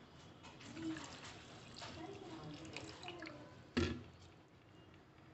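Water poured from a plastic bottle into a blender jar of orange segments and sugar, splashing and trickling. A single sharp knock comes about four seconds in.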